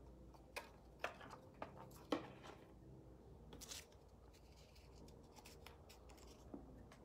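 Faint handling sounds: a few light taps and clicks as a hot glue gun and the cardboard box are set down on a wooden table, then a short rustle of paper being handled and folded about three and a half seconds in.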